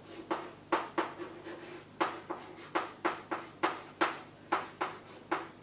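Chalk writing Chinese characters on a chalkboard: a run of short, sharp strokes and taps, about three a second.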